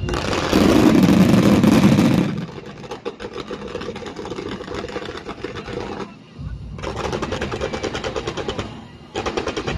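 Fireworks going off in rapid, dense volleys of crackling pops, loudest in the first two seconds. The crackling breaks off briefly about six seconds in, then resumes.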